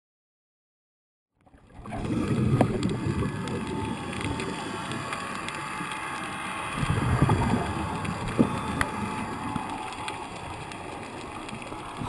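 Underwater rush of water from a strong current streaming past the camera housing, a deep rumbling noise that swells louder twice. It starts after about a second and a half of silence.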